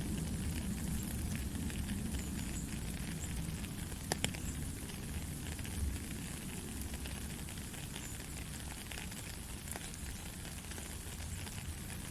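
Steady rain falling: an even hiss of drops with many small crackling ticks and a low rumble beneath, and a couple of sharper drop hits about four and six seconds in.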